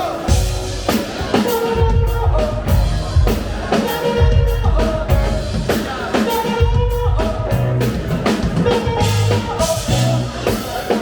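Live funk and soul band playing, with a drum kit and bass keeping a steady beat under held instrumental notes.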